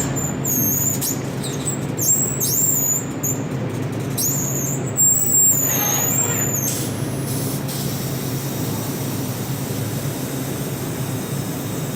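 Plasma welding machine running: a steady low hum, with a high-pitched, wavering whine that comes and goes and stops about seven seconds in.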